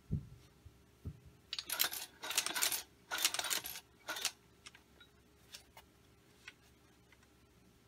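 Hand-cranked sewing machine stitching through webbing: two low thuds near the start, then four short bursts of metallic clatter from the needle and shuttle mechanism as the crank is turned, between about one and a half and four seconds in.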